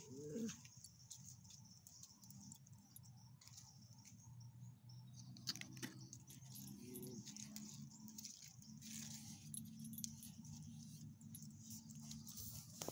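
Small dogs' collar tags and leash clips jingling and clicking as the leashed dogs move about, with one short bark just after the start. A faint low hum runs underneath from about four seconds in.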